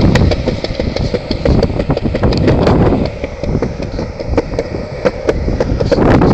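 Longboard wheels rolling over a concrete sidewalk: a continuous rough rumble with many sharp clicks, easing off in the middle and growing louder again near the end.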